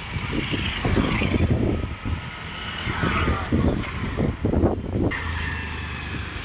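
Wind buffeting a moving phone's microphone in irregular low rumbles, with a steady low vehicle hum from about five seconds in.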